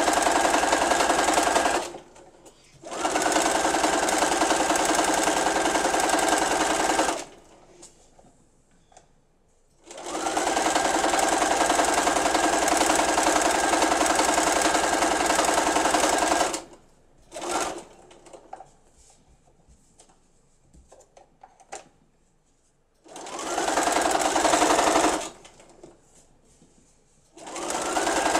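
Domestic electric sewing machine stitching in several runs of a few seconds each, stopping in between. The motor speeds up with a rising whine at the start of each run. This is free-motion stitching with the feed dogs not pulling, so the fabric is moved by hand.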